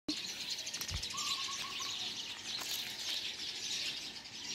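Many small birds chirping and chattering together in a dense, continuous chorus. A short run of about six quick, lower notes from one bird comes a little over a second in. A brief low thump comes just before that.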